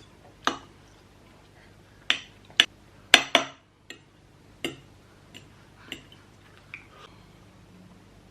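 Eating at the table: a fork or chopsticks clinking and knocking against a bowl and plate, about ten irregular sharp strikes, the loudest cluster around two to three and a half seconds in.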